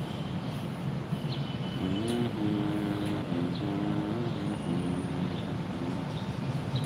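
A motor vehicle engine running, its pitch rising and falling several times.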